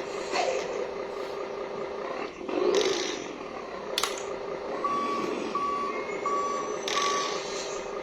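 Vehicle reversing beeper sounding four short, evenly spaced beeps about midway, over the steady hum of the idling engine. A sharp click and a few short bursts of noise come around the beeps.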